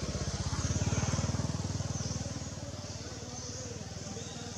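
A motor vehicle's engine running with a fast, even pulse, getting louder about a second in and then slowly fading, as a vehicle passing by would.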